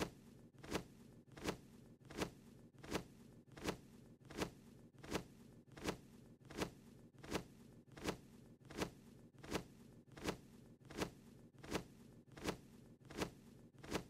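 Cartoon wing-flap sound effect of a small bird flying, a short swish repeating evenly about every three quarters of a second over a faint steady hum.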